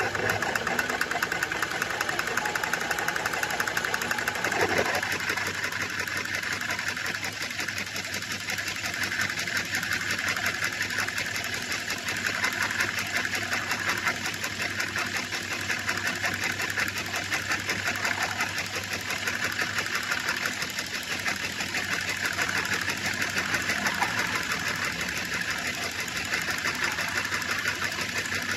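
Metal lathe running steadily: a dense, fast mechanical rattle over a low hum, which changes slightly about five seconds in.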